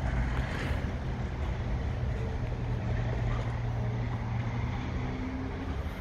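Diesel engine of a Putzmeister P 718 TD trailer concrete pump running steadily with an even low hum.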